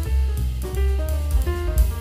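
Instrumental background music with a drum kit and a bass line under held melodic notes.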